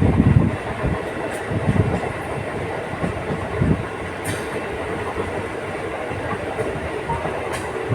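Local passenger train running along the track with a steady rumble. Irregular heavy low knocks come in the first second and again around two and four seconds in, and a few sharp clicks come later.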